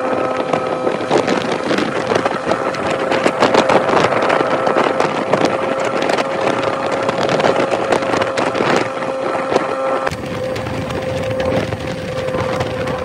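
Motorcycle engine running at a steady, even pitch while riding, with wind rushing and buffeting over the microphone. About ten seconds in the sound changes abruptly, the wind crackle easing and a lower rumble coming in.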